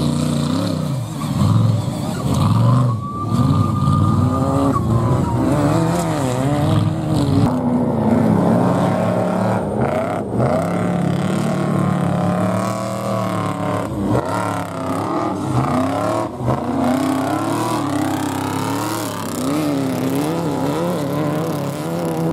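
Off-road race trucks' engines revving hard as they race past over rough dirt. The engine note keeps rising and falling with the throttle, and more than one truck is heard in turn.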